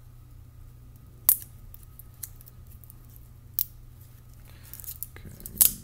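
Roll of aluminium foil tape being handled as fingers pick at its edge to peel it, the stiff foil giving a few sharp clicks and crinkles. One comes about a second in, one past the middle, and the loudest pair near the end with some rustling.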